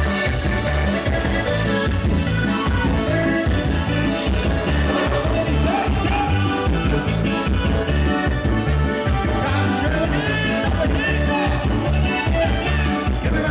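Loud Latin dance music with a steady, regular bass beat and melody lines over it.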